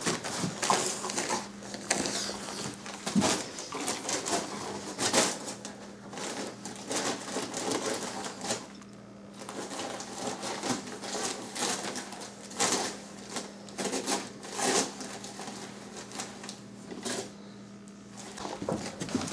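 Christmas wrapping paper crinkling and ripping as a dog tears open a present with its teeth, in irregular rips and rustles that pause briefly about halfway through.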